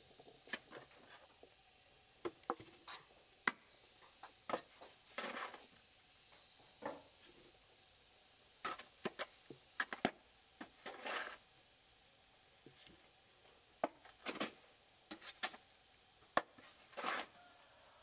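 Irregular light knocks and clicks, some spaced a second or more apart, with a few short scraping rustles.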